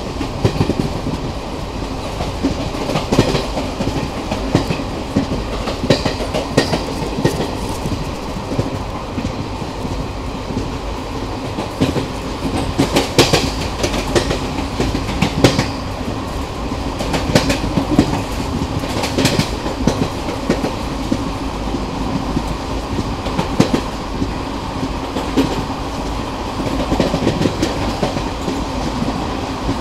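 Passenger train running along the track, heard from an open coach doorway: a steady rumble of wheels on rails, with sharp clacks of the wheels over rail joints every few seconds.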